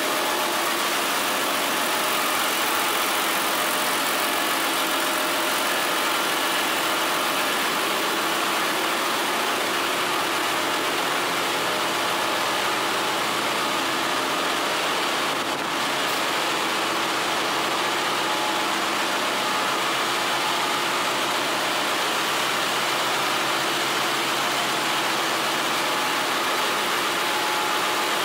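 Ship's engine-room machinery running: a loud, steady din of engines, pumps and fans, with several steady humming tones and a high hiss above them.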